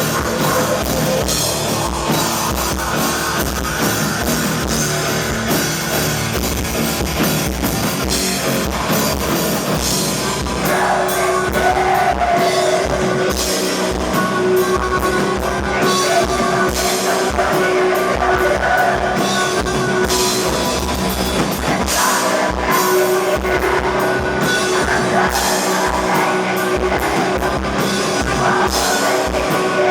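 Black metal band playing live: fast drums, distorted guitar and keyboards, with a harsh vocal in places.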